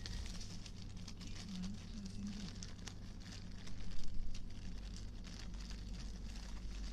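Interior ambience of a Merseyrail Class 777 electric train standing at an underground platform: a steady low hum from the train's onboard equipment, with scattered light clicks and rustles and a brief louder patch about four seconds in.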